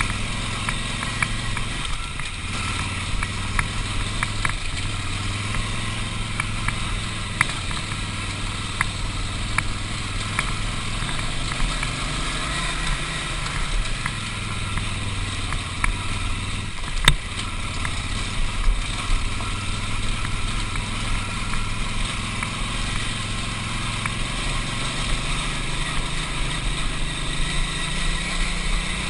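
Big adventure motorcycle's engine running steadily on a rough gravel trail, with scattered clicks and knocks from stones and rattling parts, and one sharper knock about seventeen seconds in.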